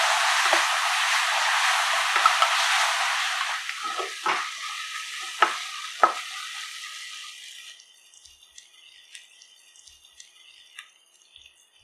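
Food sizzling in hot oil in a pan as it is stirred, a spoon knocking against the pan a few times. The sizzle fades, and about eight seconds in it drops to faint crackling.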